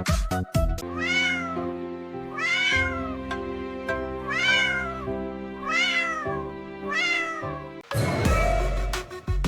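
A cat meowing five times, each meow rising then falling in pitch, over held background music chords. An electronic dance beat starts again about eight seconds in.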